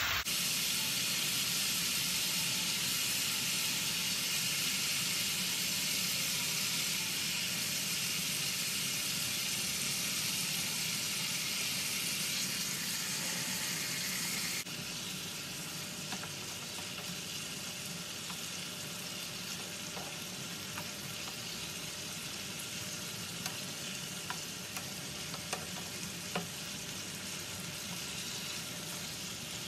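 Turmeric, red chilli and curd gravy sizzling in a frying pan, with hilsa steaks frying in it in the second half. The sizzle drops in level about halfway through, and a few light clicks of a spatula against the pan come later on as the fish is turned.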